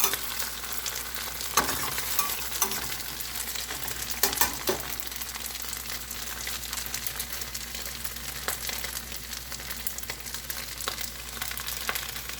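Tofu and fish balls sizzling as they fry in oil in a pan, turning golden, with a spatula knocking and scraping against the pan a few times as they are stirred.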